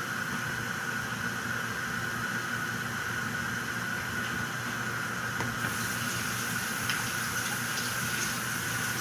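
Covered pan of chicken afritada simmering: a steady hiss of low boiling with a constant high tone underneath, turning a little brighter with a few faint crackles from about six seconds in.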